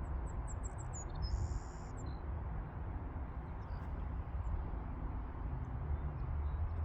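Wind rumbling on the microphone in the open air. In the first two seconds there is a quick run of faint, high chirps, then a short high whistle.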